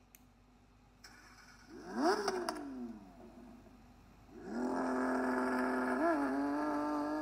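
Car engine revving once quickly about two seconds in, the pitch shooting up and falling back. A few seconds later it settles into a loud, steady engine drone that slowly climbs in pitch, with a brief blip near the end.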